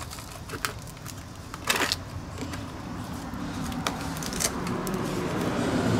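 A few small clicks and rustles of hands handling the battery strap and batteries in a mobility scooter, over a low rumble that grows steadily louder through the second half.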